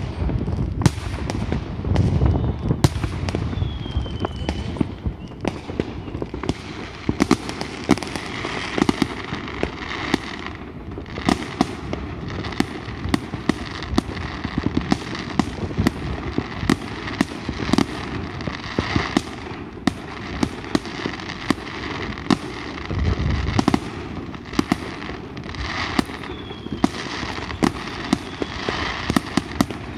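Aerial fireworks display: a dense, continuous run of bangs and crackling from bursting shells, several per second, with heavier deep booms about two seconds in and again about twenty-three seconds in.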